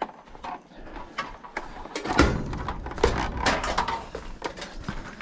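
Footsteps and handling noise while walking and carrying things: a quiet first second, then a run of irregular knocks and rustles, busiest in the middle.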